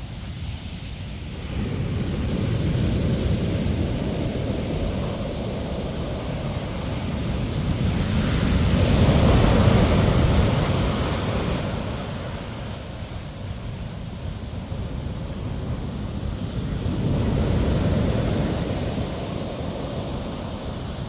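Ocean surf breaking on a sandy beach, a continuous wash that swells as each wave comes in. The loudest crash comes about halfway through, with smaller surges near the start and near the end.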